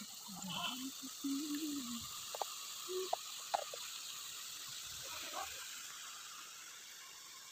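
Low, steady hiss of fish curry sizzling in a steel wok over a gas burner, with a few faint clicks between about two and four seconds in.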